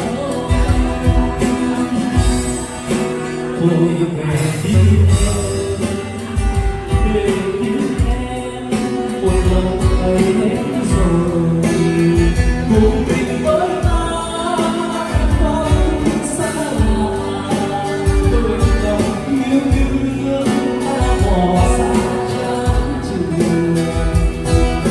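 Live band playing through a PA system: a man singing a melody over strummed acoustic guitars, with percussion keeping a steady beat.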